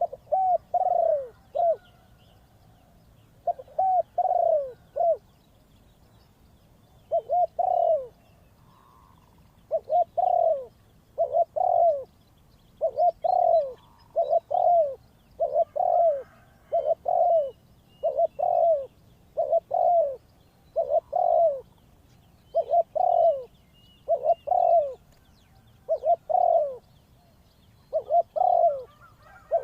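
Spotted dove cooing over and over, each phrase two or three falling coos, repeated about every one and a half to two seconds with a brief pause around a third of the way through. Faint chirps of other small birds sound in the background.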